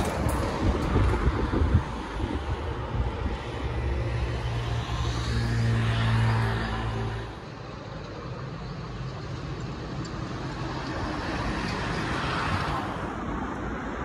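Road traffic passing: a vehicle's steady engine hum builds about four seconds in and drops away just past the middle, with another vehicle swelling past near the end. Wind rumbles on the microphone in the first two seconds.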